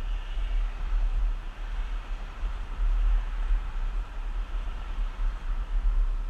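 Wind buffeting the microphone of a camera moving along the path, a low uneven rumble, over a steady rushing hiss of wheels rolling on pavement.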